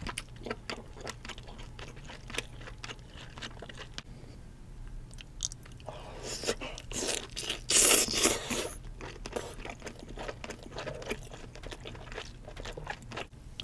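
Close-miked eating of king crab leg meat: wet chewing with many small clicks, and a louder spell of biting into the meat about six to nine seconds in. A faint steady low hum runs underneath.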